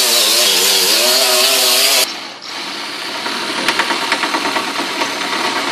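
A power grinder grinding a steel car frame rail, its motor pitch wavering under load, stops abruptly about two seconds in. An electric drill then bores into the frame rail, running steadily with light ticking.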